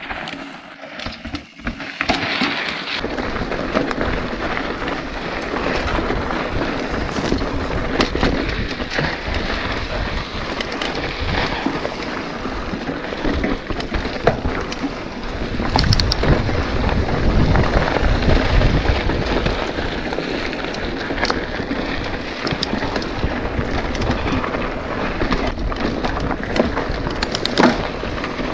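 Mountain bike ridden on a dry dirt and gravel trail, heard from a handlebar-mounted camera: steady tyre crunch on loose ground with a constant clatter of small knocks and rattles from the bike, over a low rumble. It starts quieter in the first couple of seconds and gets loudest about halfway through.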